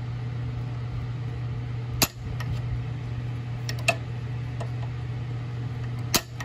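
Sharp snaps of a spark jumping the gap of a spark plug fired by an International LB engine magneto spun over by hand, a hot spark showing the magneto works. A few snaps at uneven intervals, two close together about four seconds in and the loudest near the end, over a steady low hum.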